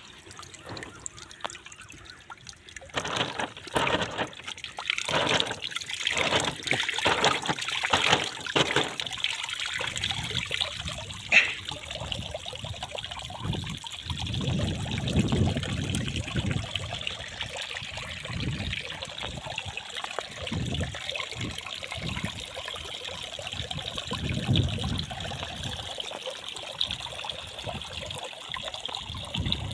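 Water trickling and splashing as thin jets leak from pinholes in a big water-filled plastic bag and muddy water pours from a plastic drum's outlet onto wet ground. One sharp click sounds about a third of the way in.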